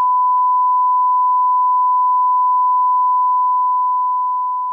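Test-card tone: one steady, unbroken, pure electronic beep at a single pitch, the sound of a 'no signal' test pattern standing for the lost video feed. A faint click comes about half a second in.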